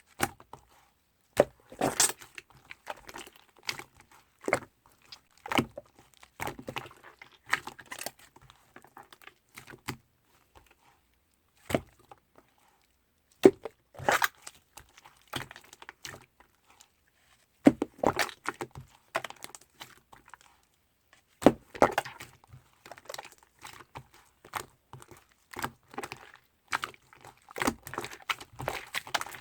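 Slime being squeezed and pressed by hand, giving irregular runs of small clicks, pops and crackles, with short pauses between handlings.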